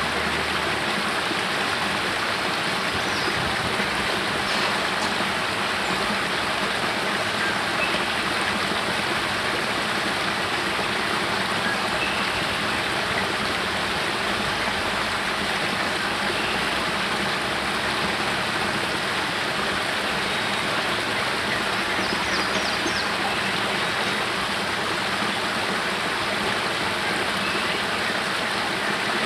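Small spring-fed cascade spilling from a cave mouth over rocks into a pool: a steady rush of falling and running water.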